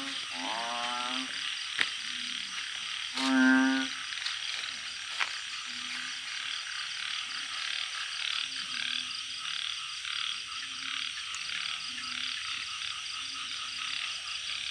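Male balloon frogs (Glyphoglossus molossus) calling: two loud, drawn-out low croaks close by in the first four seconds, then fainter calls from others about every second. Behind them runs a steady high-pitched chorus.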